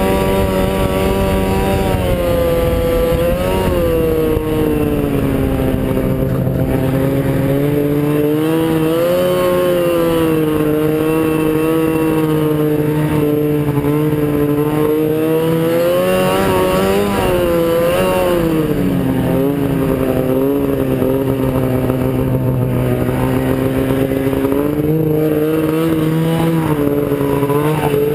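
Arctic Cat F7 snowmobile's two-stroke twin engine running under way, its pitch rising and falling several times as the throttle is eased and opened again.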